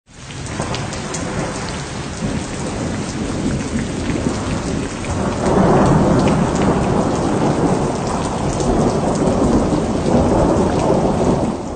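A thunderstorm: heavy, steady rain with rumbling thunder, growing louder about five and a half seconds in.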